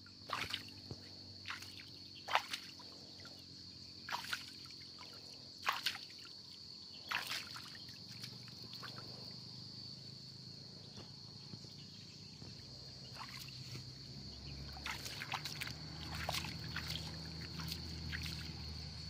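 Hands splashing and sloshing in shallow stream water while a flat stone is washed, with a splash every second or two for the first several seconds, then fewer. A steady high insect drone runs underneath.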